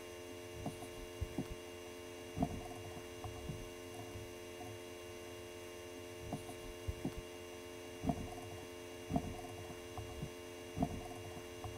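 Quiet, steady electrical hum with about a dozen short, soft clicks scattered through it, typical of computer mouse clicks while drafting.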